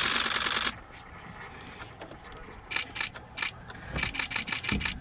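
Camera shutters firing in rapid bursts. A long, very fast burst cuts off about two-thirds of a second in, then shorter rattling bursts of clicks follow around three seconds and again near the end, over a low rumble.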